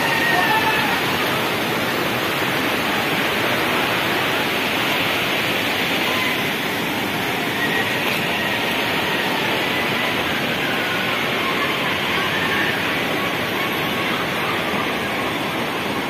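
Steady rush of falling and flowing water from a monsoon waterfall and the stream below it.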